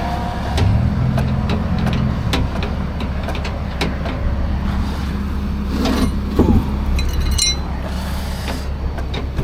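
Steady low rumble of a running vehicle engine or passing road traffic, with scattered clicks and metallic knocks from tyre-change tools.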